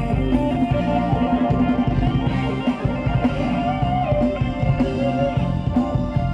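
Live band playing Thai ramwong dance music: electric guitar over a drum kit keeping a steady dance beat.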